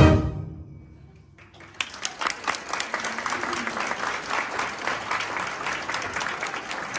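A concert band's final chord, with jingle bells, dies away in the first second, then audience applause starts about two seconds in and carries on steadily.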